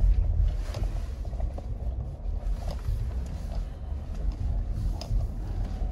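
Low, steady rumble of an Ineos Grenadier's BMW inline-six petrol engine and drivetrain, heard from inside the cabin as the truck crawls slowly over a rocky, muddy trail, with a few light knocks.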